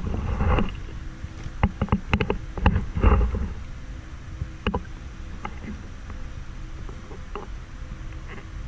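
Handling noise from the cardboard box of a portable butane stove being held and turned: rustling with a run of sharp clicks and knocks in the first few seconds, then a few scattered ticks.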